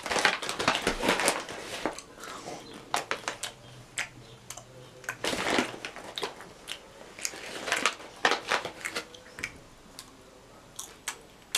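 A person chewing food loudly, with irregular crunches.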